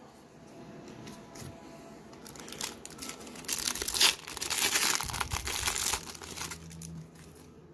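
Foil wrapper of a 1991-92 Pro Set hockey card pack being torn open and crinkled by hand. The crinkling starts about two and a half seconds in, is loudest in the middle, and dies away near the end.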